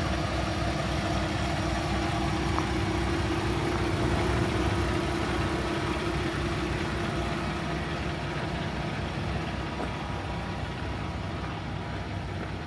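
Peterbilt 579's Paccar MX-13 diesel engine idling steadily, growing a little fainter near the end.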